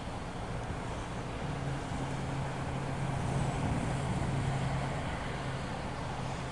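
A MARC commuter train's diesel locomotive passing: a steady rumble, with a low, even engine drone that comes in about a second and a half in and grows loudest around the middle.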